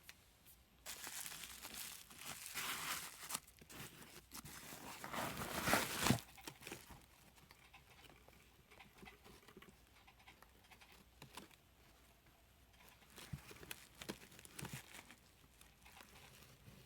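Packaging being opened by hand: crinkling and tearing of wrapping for about five seconds, loudest near the end of that stretch. Then comes quieter rustling with scattered light taps, and a second short flurry of crinkling later on.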